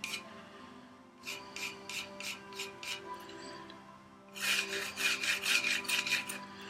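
Short rhythmic scraping strokes against wood, a hand tool worked back and forth: a slower run of about five strokes, a brief pause about four seconds in, then a quicker, louder run.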